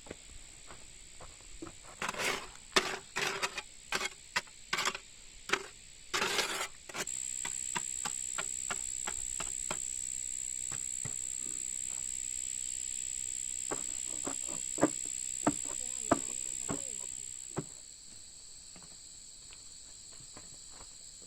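Insects calling with a steady high-pitched buzz, which grows louder about seven seconds in and drops back near the end. Scattered clicks and rustling knocks come in the first few seconds, and a few sharp clicks come later.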